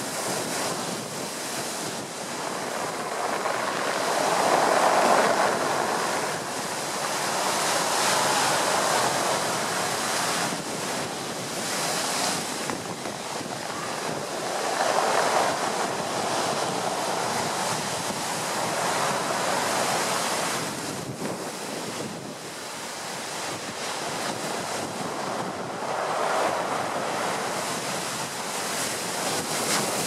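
Heavy surf crashing against a sea wall and groynes over a shingle beach, a continuous rush that swells and eases every few seconds, loudest about five seconds in. Strong wind blows across the microphone throughout.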